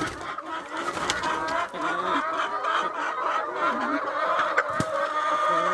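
A flock of laying hens clucking and calling continuously, many voices overlapping, with a single sharp click about five seconds in.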